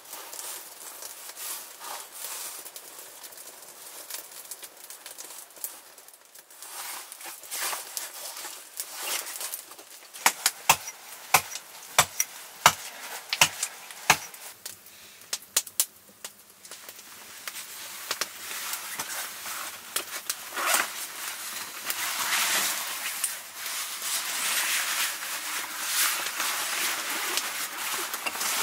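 Small wood fire crackling and popping, with a quick run of about six sharp knocks or snaps in the middle. Toward the end the crackling grows denser and louder as the fire takes hold.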